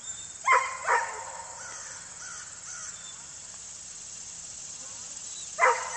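Crow cawing: two loud, harsh caws about half a second apart near the start and another near the end, over a steady high insect drone.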